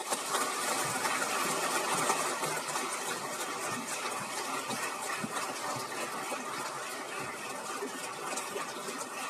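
Audience applauding: dense, even clapping that starts suddenly and holds steady, easing off slightly near the end.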